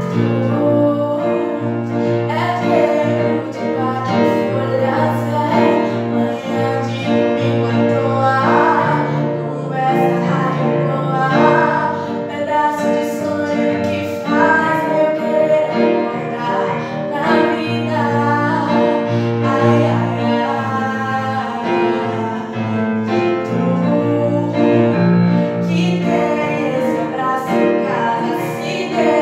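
A woman singing a slow song, accompanied on a digital piano with held bass notes.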